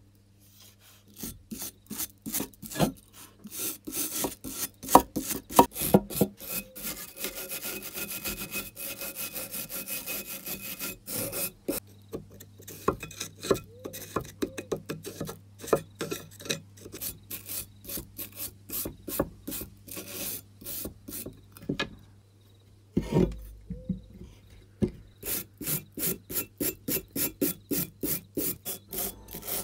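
A hand brush scrubbing back and forth over a rust-encrusted steel adjustable wrench, in runs of rasping strokes. There is a short pause and a low thump about 23 seconds in, then a quick, even rhythm of about three strokes a second.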